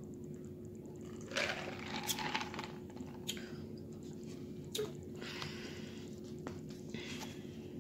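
Sauce squirted from a plastic squeeze bottle onto a sandwich: a few short wet squirts in the first couple of seconds, then soft handling sounds of bread and filling, over a steady low hum.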